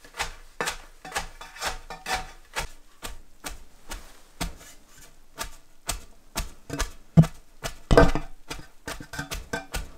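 Wooden batten tamping shredded white cabbage down into a sauerkraut fermenting crock: a dull thud about twice a second, with two heavier blows about three-quarters of the way through. The pounding packs the cabbage until its juice comes out.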